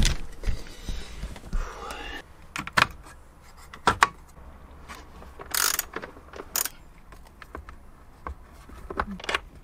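A run of sharp clicks and knocks from metal parts, cable lugs and fittings being handled and fitted while wiring a van's inverter and battery, with two short scraping rasps around the middle.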